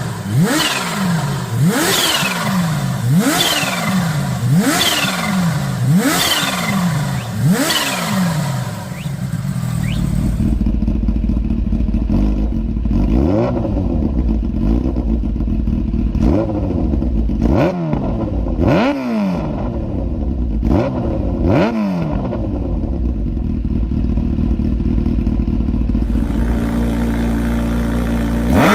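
Kawasaki H2/H2R supercharged inline-four motorcycle engine being revved: quick throttle blips about once a second, each rising sharply in pitch and falling back. After about ten seconds it settles into a steadier low running, with a sharp rev every second or two.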